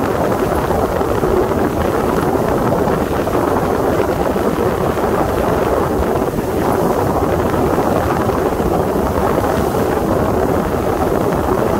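Sea Ray 21 MC motorboat under way: a steady rush of wind on the microphone mixed with the running engine and the water along the hull.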